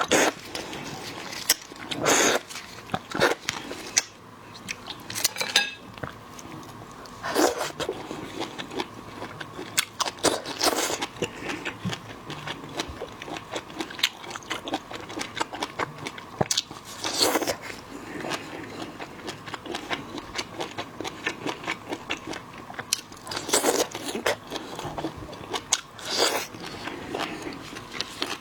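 A person eating seafood close to the microphone: steady crunching, cracking and chewing of crab and lobster, with a louder burst every few seconds.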